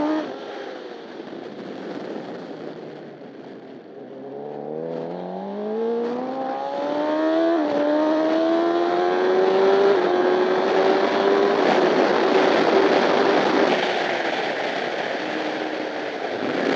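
Honda CBR1000RR superbike's inline-four engine at racing speed, heard onboard. The revs drop and the engine quietens as the rider shuts off for a corner. From about four seconds in it drives hard out of the corner, revs climbing with quick upshifts. It holds high revs, then winds down again near the end, over steady wind rush.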